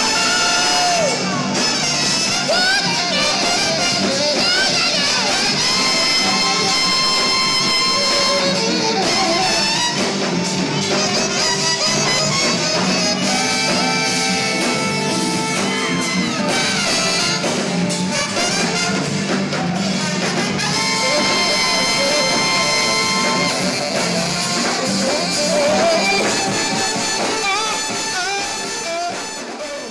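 Live party band playing an upbeat song: singers over drums and electric guitar, dense and steady, fading out near the end.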